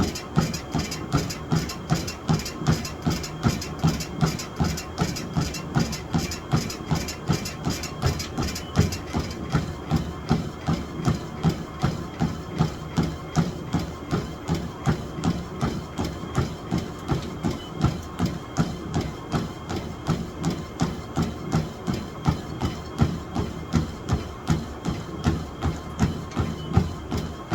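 Sole F85 treadmill under a runner: steady footfalls about three a second, each with a creak from the treadmill at zero incline. About nine seconds in the incline is raised to 3 and the creak stops, leaving the thud of the footfalls and the running deck. The creak comes and goes at low inclines.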